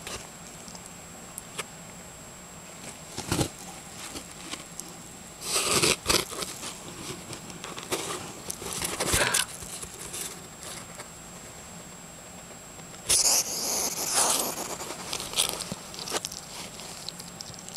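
A hedgehog rooting through a towel in a cardboard box while feeding on worms: scattered scrapes, rustles and crunching. Louder bursts of rustling come about six seconds in, around nine seconds, and again about thirteen to fourteen seconds in.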